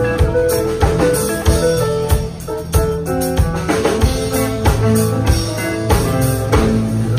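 Live band playing an instrumental passage: a drum kit keeps a steady beat of about two hits a second under keyboard and electric guitar.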